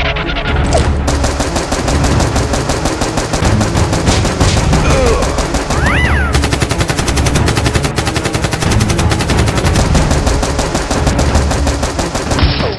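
Automatic gunfire sound effect: long, unbroken runs of rapid shots that start about a second in and stop just before the end.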